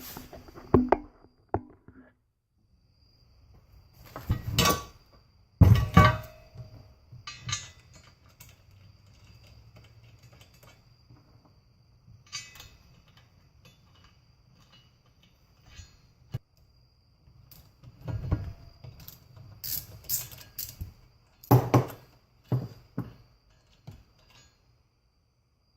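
Metal bolts and winch-mount hardware clinking and knocking at irregular intervals as they are handled and test-fitted, with a faint steady high whine underneath.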